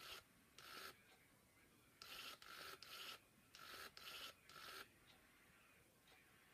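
Faint whirring of a Baby Alive doll's small internal motor and gears. It comes in about eight short bursts, several close together in quick runs, as the doll moves its animated face and blinks its eyes.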